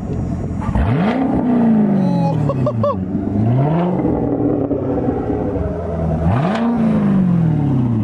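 Chevrolet C7 Corvette's V8 revved three times through its newly fitted aftermarket exhaust, each rev a sharp rise in pitch that falls back more slowly toward idle; the second rev is smaller. It sounds in a concrete parking garage.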